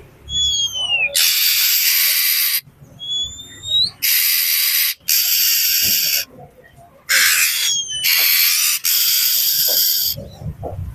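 Oriental magpie-robin (kacer) calling agitatedly: long harsh hissing rasps of about a second each, alternating with thin whistled notes that glide down or up.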